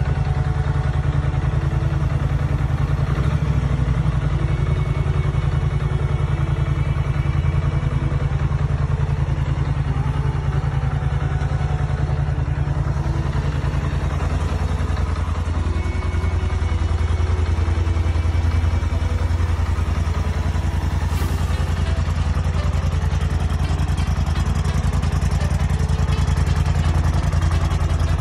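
2021 Polaris Sportsman 850 High Lifter ATV's parallel-twin engine idling steadily, growing somewhat louder about halfway through.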